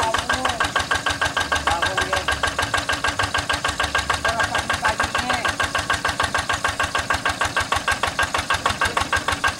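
Hand tractor's single-cylinder diesel engine idling with an even chug of about seven beats a second.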